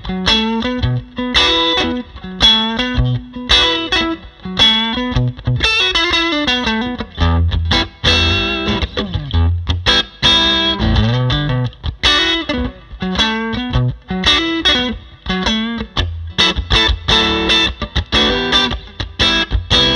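Tokai Springy Sound Strat-style electric guitar played through a Bad Cat Classic Pro 20 Reverb valve combo (6V6 power valves, one 12-inch speaker) with the gain fully up, giving a driven, distorted tone. A phrase of picked single notes and chords, miked from the speaker with no added processing.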